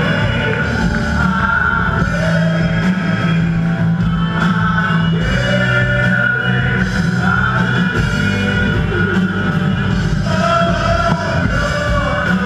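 Live rock band playing loudly: a singer over drums and guitar.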